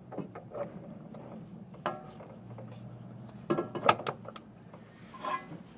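Metal clicks and knocks as the splined end of a new Honda Civic CV axle is pushed and worked into the transmission, a few sharp strikes with the loudest a little past the middle.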